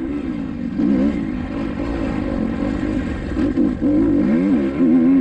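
Four-stroke Kawasaki KX250XC dirt bike engine being ridden hard, its revs rising and falling with throttle and gear changes. Quick up-and-down revs come in the last second or two.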